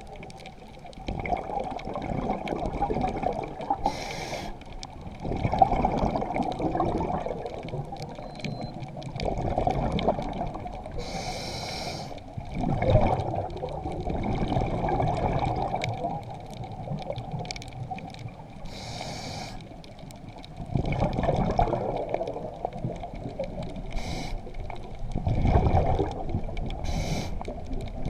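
Scuba diver breathing through a regulator underwater: a short hissing inhale roughly every six or seven seconds, each followed by a few seconds of rumbling exhaust bubbles.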